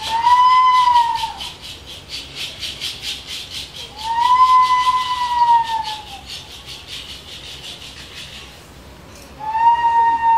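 Three long whistle-like notes, each swelling and bending gently in pitch; the last, about nine seconds in, is held steady. Under the first two runs a fast, even ticking, about five a second, which stops shortly before the third note.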